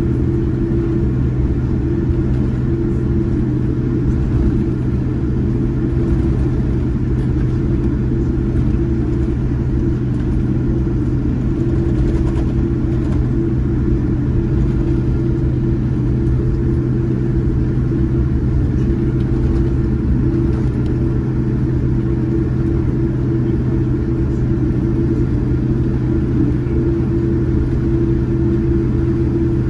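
Steady low rumble with a constant hum of a Boeing 787-9 with GEnx engines, heard from inside the cabin at low power during taxi.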